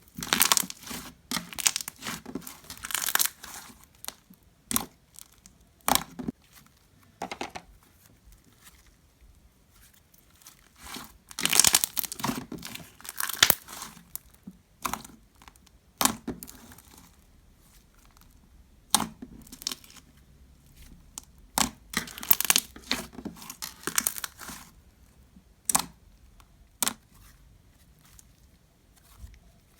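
Hands stretching, folding and squishing homemade glitter-glue slime, making irregular clusters of short crackles and pops with brief pauses between them.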